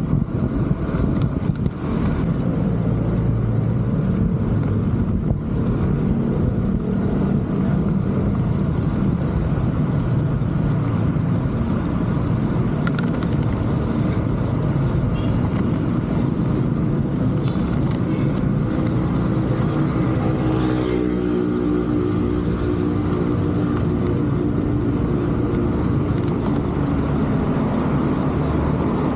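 Steady road and wind rumble on a bicycle-mounted camera riding through city traffic. About twenty seconds in, a passing motor vehicle's engine adds a pitched hum that lasts a few seconds.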